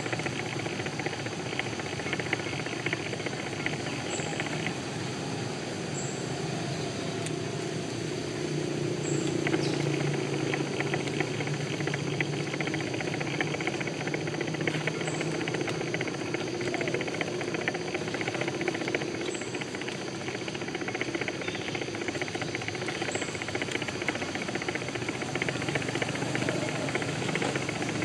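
Steady outdoor background hiss. A low hum swells about nine seconds in and fades away again some eight seconds later.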